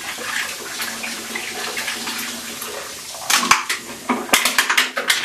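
Pepsi pouring from a can into a bathtub full of soda: a steady splashing pour. A little after halfway it gives way to a run of sharp clicks and metallic clinks as an aluminium can is handled.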